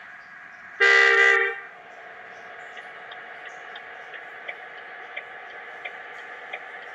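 Sugeng Rahayu bus horn sounding one short, loud blast, under a second long, about a second in. A steady hum with faint, evenly spaced ticks follows.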